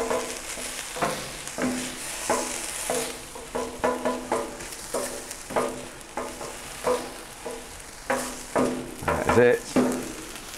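Food sizzling on the hot plate of a Pit Boss griddle, with repeated scraping strokes of a utensil on the steel, several in each couple of seconds.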